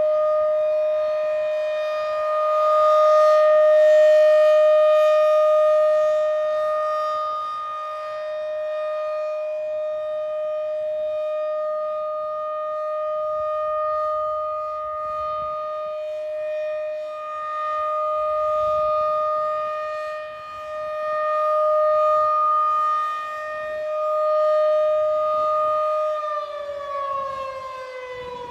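Federal Signal 2001-SRN rotating outdoor warning siren sounding the steady Alert signal: one held tone with several overtones that swells and fades in loudness as the siren turns. About 26 seconds in, the pitch starts to fall as the siren winds down.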